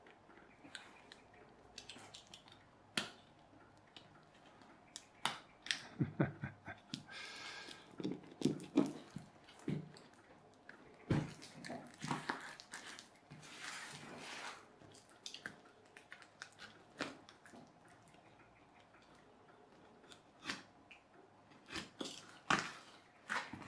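Plastic film and tape wrapping on a parcel crinkling and rustling as hands grip and work at it, with irregular clicks and scrapes in scattered bursts and quiet gaps between. Near the end a hand tool is worked against the wrapping to cut it open.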